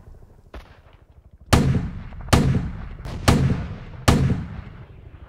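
Artillery fire: four heavy blasts in quick succession, about one a second, each with a low rumbling tail, after a faint crack.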